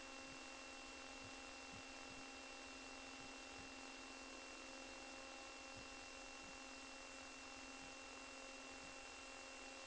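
Faint steady electrical hum and hiss, a few fixed tones over an even noise floor that neither rises nor falls.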